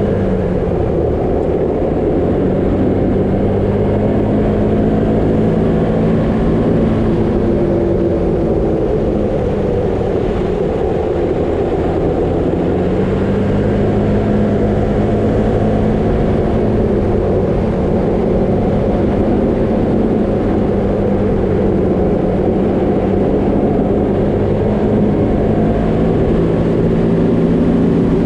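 A vehicle engine running steadily while driving, its hum rising and falling gently as speed changes, under a constant rumble of tyres on a dirt road.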